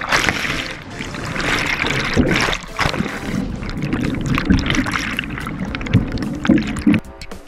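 Whitewater rushing and churning over a kayak-mounted camera as the kayak drops down a steep chute and goes under the foam, with several dull thumps of water hitting the camera. Music comes in near the end.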